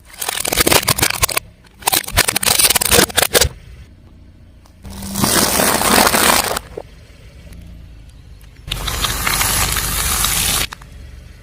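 A car tyre rolling over and crushing crunchy objects, with dense crackling and snapping, in four separate bursts of a second or two each.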